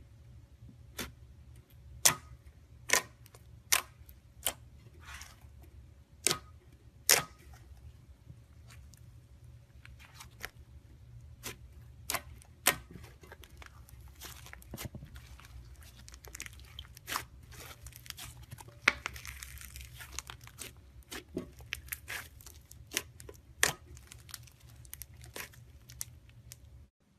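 Slime being squeezed and stretched by hand, giving irregular sharp pops and crackles, one or two a second; the sound cuts off just before the end.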